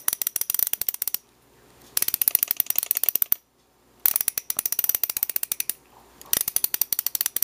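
The ratchet head of a torque wrench being worked back and forth, making rapid, sharp clicks in four bursts of about a second and a half each, with short pauses between them.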